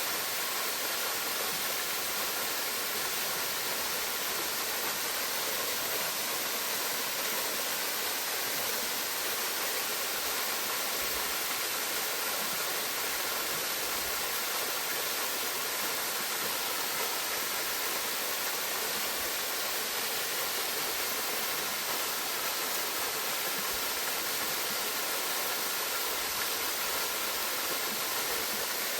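Gohō Falls waterfall, water pouring and rushing in a steady, unbroken hiss that sits mostly in the higher range, with little low rumble.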